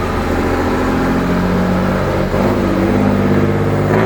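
Mercedes car's engine and exhaust rumbling with a deep, steady note. The pitch dips and recovers about two seconds in, and drops briefly near the end.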